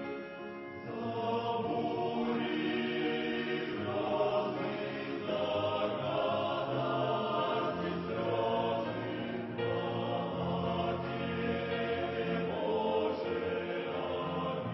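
Choir singing a slow Christian hymn in sustained chords, the phrases swelling and changing every second or two.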